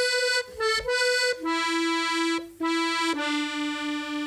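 Accordion playing a slow melody of long held notes, stepping down in pitch, with a brief break between two notes about two and a half seconds in.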